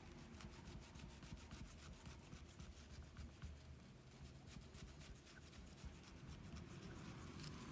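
Faint wiping and rubbing on a small replacement Apple Watch glass panel as specks are cleaned off it, with many small, irregular scratchy ticks.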